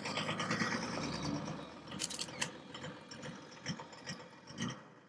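An engine running with a rapid mechanical clatter and scattered sharp clicks, fading away near the end.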